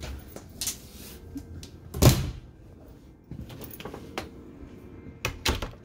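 Doors being handled in a small trailer bathroom: a series of clicks and knocks of latches and door panels, the loudest a single thump about two seconds in and a last pair of clicks near the end.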